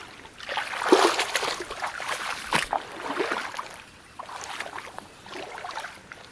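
Water sloshing and splashing in irregular bursts, roughly one a second, like steps wading through a shallow creek, with a sharp click about two and a half seconds in.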